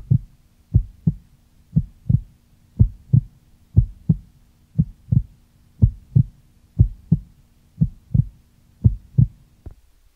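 Heartbeat sound effect: slow, even paired lub-dub thumps, about one a second, over a faint steady hum. The beats and the hum stop just before the end.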